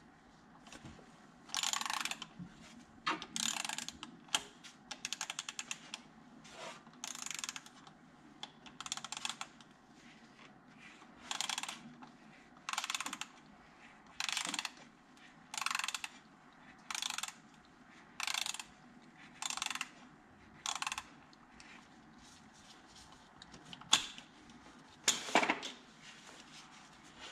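A ratchet clicking in short bursts, roughly one every one to two seconds, as it is swung back and forth to unscrew an oil filter housing with a cap-type filter wrench.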